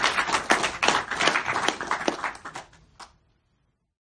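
Audience applauding, a dense patter of many hands clapping that thins out and stops about three seconds in.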